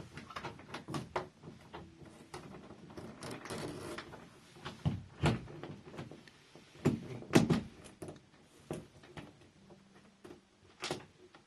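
Handling noise of a fingerprint keypad door lock being fitted into a door: irregular clicks and knocks of the lock parts against the door, a brief scrape, and a few louder knocks midway.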